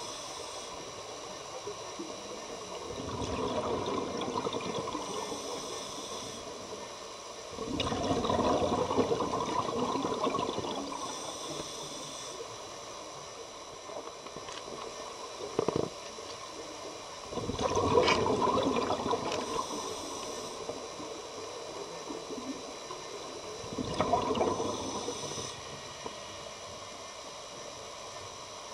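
Scuba breathing through a regulator underwater: four bubbling exhalations about every six to seven seconds, each followed by a short hiss of the regulator on the inhale. There is one sharp knock about halfway through.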